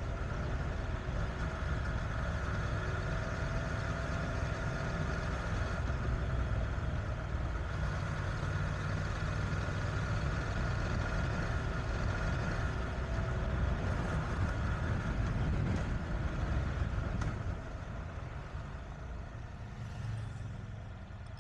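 Honda NC750X parallel-twin motorcycle engine running steadily under way, with wind noise. It quietens in the last few seconds as the bike slows.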